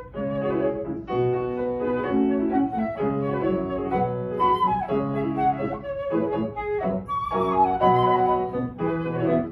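Concert flute playing a melody with grand piano accompaniment, held and moving notes in phrases broken by brief pauses.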